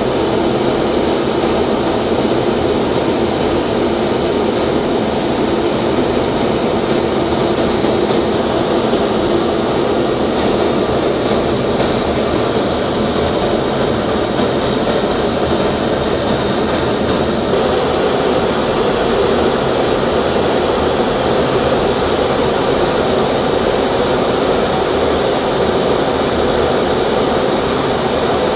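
Steady jet aircraft noise: a loud, unbroken drone of engines and rushing air, as heard from inside an aircraft flying with the formation.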